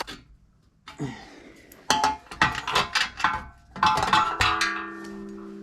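Metal clinking and clanking from a motorcycle's steel stock exhaust and tools as the exhaust is worked loose: a run of sharp knocks, some briefly ringing, starting about two seconds in.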